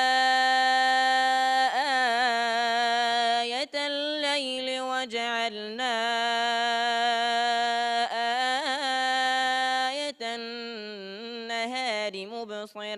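Qur'anic recitation chanted by a single reciter, sung in long held notes with melodic turns and short pauses for breath.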